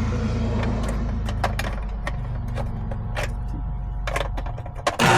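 Steady low electrical hum with scattered sharp clicks while the hard-start kit is plugged in. Near the end the hum drops out and an AC compressor fitted with a hard-start kit kicks on with a sudden loud start, settling into a strong steady hum.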